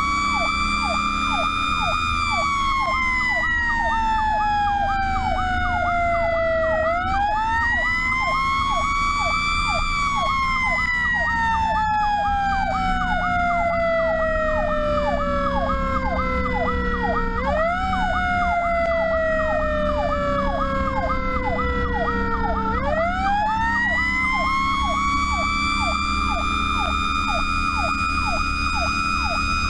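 Fire truck running with two sirens going at once. A wail siren climbs quickly and then falls slowly, four times, over a fast repeating yelp, with the truck's engine droning underneath.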